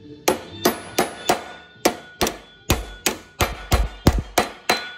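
A rounded-face body hammer strikes a sheet-steel flange about thirteen times, roughly two or three blows a second, with each blow ringing briefly. The blows are staking the flange over a 3/16-inch wire to form a wire edge, while wire edge pliers clamp the wire in place.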